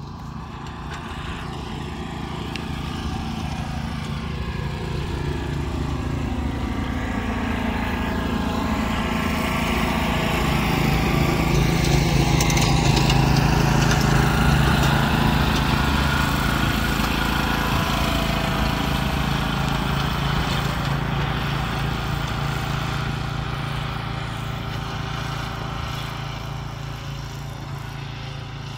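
Tow-behind rough-cut mower's gas engine and cutting deck running steadily, together with the Suzuki Carry mini truck towing it. The sound grows louder as they pass closest about halfway through, then fades as they move away.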